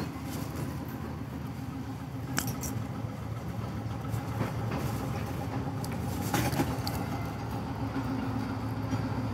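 Steady low hum of a railway passenger train, with a few faint clicks and knocks scattered through it.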